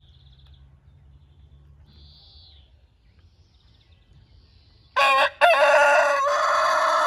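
Rooster crowing once, loud, about five seconds in: a short opening note, a brief break, then a long held call that carries on past the end.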